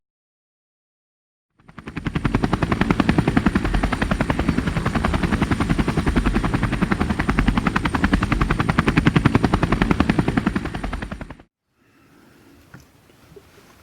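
Helicopter rotor blades chopping in a fast, even beat, fading in about a second and a half in and fading out near the end.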